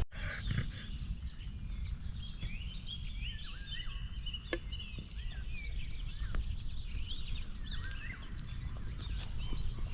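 Several birds singing and chirping in quick short notes over a low steady rumble, with a single sharp click about four and a half seconds in.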